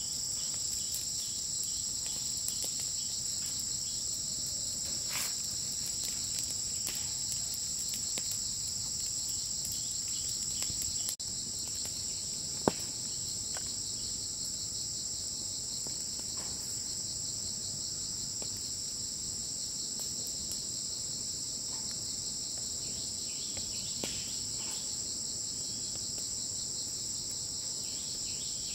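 Steady, dense insect chorus, a continuous high shrill chirring, with a few faint small clicks and taps and one sharper click about halfway through.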